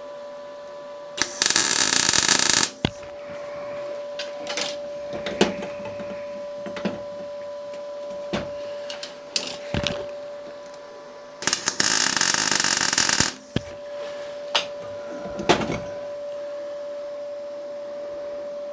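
Two MIG tack welds, each a loud burst of arc noise lasting about a second and a half, about ten seconds apart, tacking a repair piece into a fork before it is fully welded. A steady hum runs underneath, with a few short clicks and knocks between the tacks.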